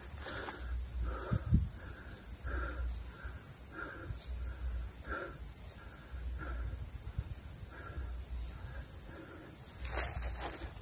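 Cicadas buzzing in a steady, unbroken high-pitched drone, with a hiker's footsteps on the dirt trail about twice a second.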